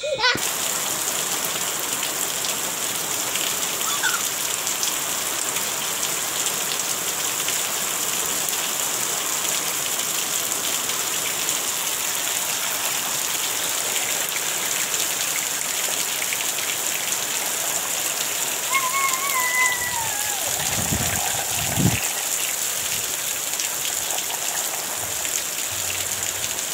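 Steady rain falling. A brief high call that falls in pitch cuts through it about two-thirds of the way through.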